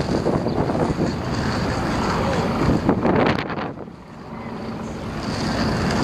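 Wind buffeting the microphone: a low, blustery rumble that eases off for about a second midway, then picks up again.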